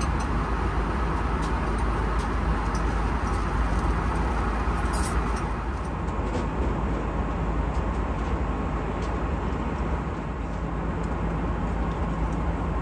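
Steady roar of an Airbus A330 cabin in flight, engine and airflow noise, with a few faint clicks.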